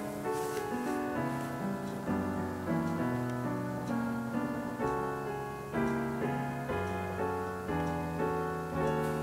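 Background piano music, with new notes struck about once a second over sustained chords.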